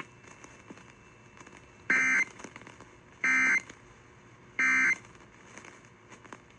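Emergency Alert System end-of-message code over AM radio: three short, identical bursts of digital data tones, about 1.3 s apart.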